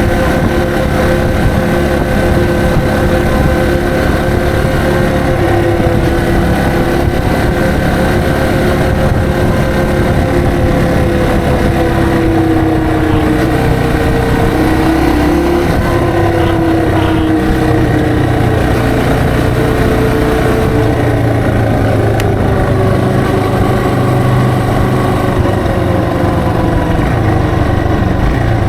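Yamaha TW225's single-cylinder four-stroke engine running as the motorcycle rides along at a fairly steady pace, its pitch drifting gently up and down, with a dip around the middle as the rider eases off.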